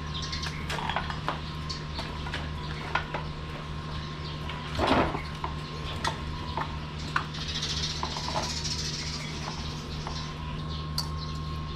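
Scattered light metal clicks and clinks of tools and steering parts being handled, with one louder scrape about five seconds in, over a steady low hum.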